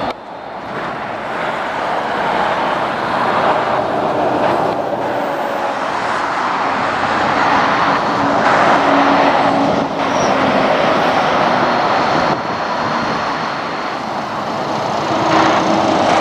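Heavy articulated trucks and a car passing on a road: tyre roar and diesel engines swelling and fading as each goes by. The sound changes abruptly a few times.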